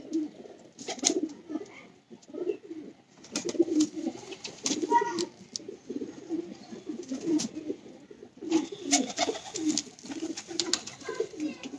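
Domestic pigeons cooing continually, several voices overlapping, with scattered sharp clicks and rustles.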